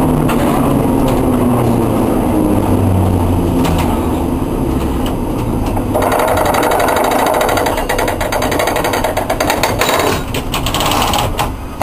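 Historic tram under way, heard from its cab: a low motor hum mixed with wheel noise on the rails. About six seconds in this gives way to a fast, even mechanical rattle.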